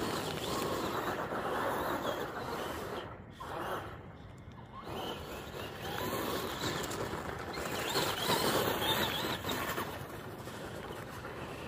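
Traxxas Bigfoot RC monster truck driving on gravel: its brushed electric motor whines, rising and falling with the throttle, over a gritty crunch of tyres on loose gravel. The sound dips about three seconds in and is loudest a little after the eight-second mark.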